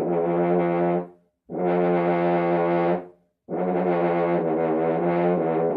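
A brass horn played low and unwarmed, the player's first sounds of the day: three long low notes at about the same pitch with short breaths between them. The last note is held longest and wavers a little.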